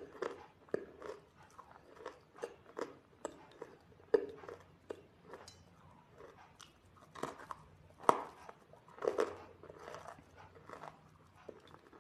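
A person biting and chewing something hard and crunchy close to the microphone: irregular crisp cracks several times a second, with louder bites about four and eight seconds in.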